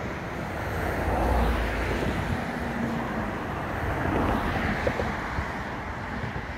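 Wind buffeting the microphone over a steady rush of wind across open water, swelling with deep rumbling gusts about a second in and again around four seconds.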